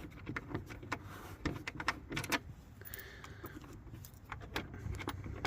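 Light, irregular metallic clicks and clinks of a 10 mm socket wrench and bolts as the bolts holding a trim panel are loosened and taken out.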